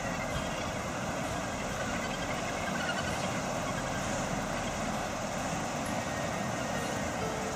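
Steady, even roar of wind and surf, with the calls of the Australasian gannet colony faint within it.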